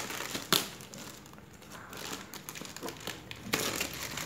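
Thin black plastic mailer bag crinkling and rustling as hands dig into it and pull boxes out, with one sharp crackle about half a second in.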